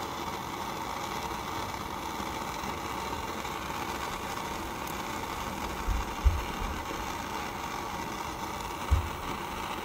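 Jeweler's gas soldering torch burning with a steady hiss as it heats joints to flow hard solder. A few dull low bumps come about six seconds in and once more near nine seconds.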